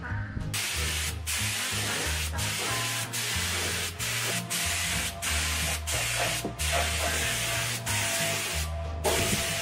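Gravity-feed paint spray gun on compressed air spraying paint, a steady hiss that starts about half a second in and breaks off many times for a moment as the trigger is released between passes.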